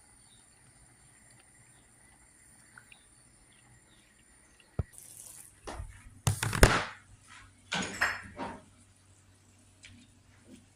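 Kitchen handling noises: after a quiet stretch, a sharp click about halfway through, then a few clattering knocks and scrapes of pots and utensils over the next few seconds.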